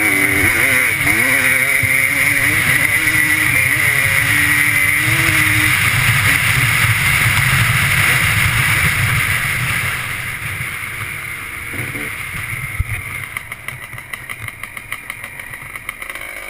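Honda 250 two-stroke off-road engine running under throttle with the pitch rising and falling, heard with wind rush on a helmet-mounted microphone. About ten seconds in it backs off to a quieter, fast regular putter.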